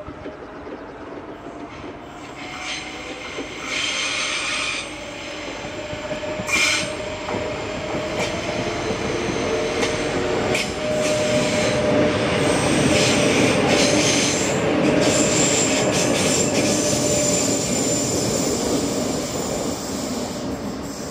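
Renfe class 447 electric multiple unit passing, growing louder as it nears with a steady rumble, then easing off near the end. High wheel squeal rises over it a few times, longest for a few seconds after the middle.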